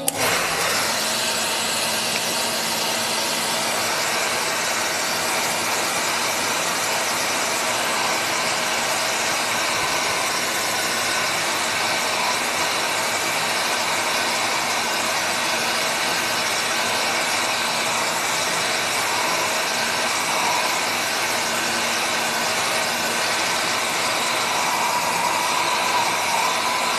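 Hair dryer switching on and running steadily, a loud rush of air with a faint motor whine, as it blows over wet gouache paint to dry it.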